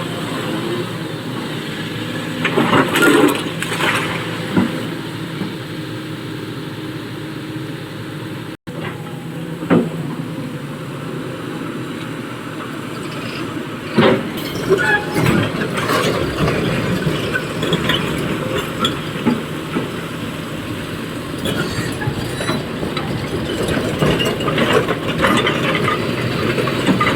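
Diesel excavator engine running steadily while loading a dump truck, with repeated clanks and clatters of stone and metal as loads are dropped.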